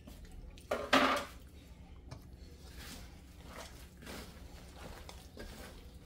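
Hand squishing and kneading wet pakora batter of gram flour and vegetables in a stainless steel bowl, in soft irregular swishes. A short, louder splash about a second in as water from a plastic cup goes into the batter.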